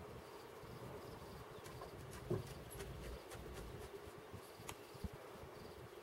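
Faint outdoor background: a steady low hum with short runs of faint, high chirping repeated several times, and one short knock about two seconds in.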